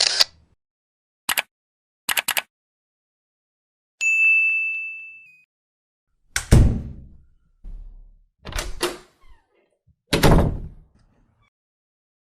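A string of separate short sound effects: a few sharp clicks, then a bright single ding about four seconds in that rings out and fades over a second or so, then three heavier knock-like hits with a deep thud in them.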